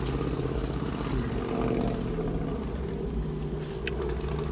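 Car engine idling, a steady low hum heard from inside the cabin, with a short click just before the end.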